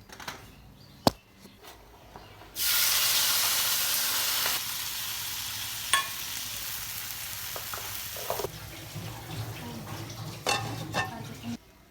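Chopped tomatoes going into hot oil in a pan: a sudden loud sizzle about two and a half seconds in that settles to a steadier frying hiss and stops shortly before the end. A sharp knock comes about a second in, and utensil clinks are heard over the frying.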